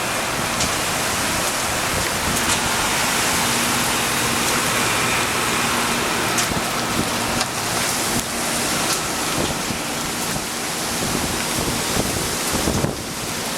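Strong storm wind blowing, a loud, steady rushing noise with a few faint clicks in it.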